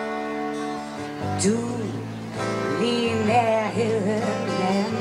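A song sung in Danish over instrumental backing: a held chord, then a singer comes in about a second in with the word 'du'.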